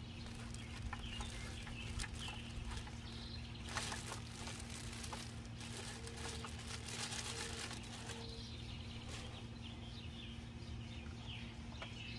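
Plastic bag crinkling and rustling as a weather station sensor unit is unwrapped by hand, mostly in the first half. Birds chirp in the background, with a series of four short low notes a little past the middle, over a steady low hum.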